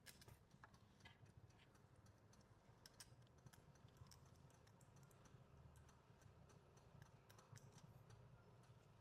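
Near silence with faint, scattered clicks and taps of small metal engine parts being handled and fitted by hand during reassembly of a 49cc engine.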